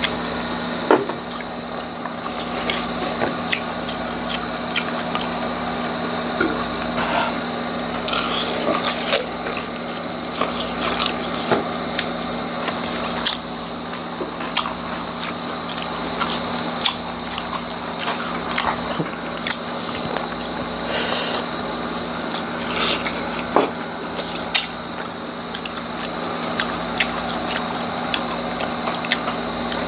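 Two people eating deep-fried chicharong bulaklak (crisp pork mesentery) and lettuce into lapel microphones: crunching and chewing with wet mouth sounds, broken by many scattered sharp crunches.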